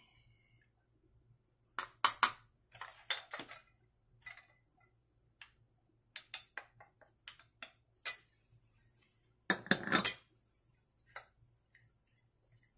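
Spoons tapping and clinking against a stainless steel bowl and small ceramic dishes while seasonings are added to raw shrimp: a string of short, sharp clinks, with a longer clatter about ten seconds in.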